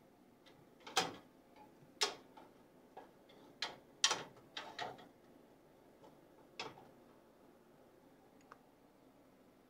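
Sharp clicks and knocks of a small wooden locker door and its fittings being handled: the knob gripped and the door worked, about eight knocks over six seconds, the loudest about a second in and again about four seconds in.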